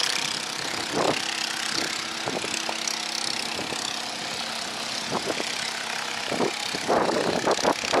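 An engine chugging steadily with an even droning hum. A few soft knocks sound over it, about a second in and near the end.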